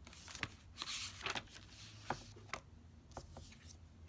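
Paper handling: pages of a small guidebook being leafed through and a card picked up, heard as soft rustles and light taps, with a longer rustle about a second in.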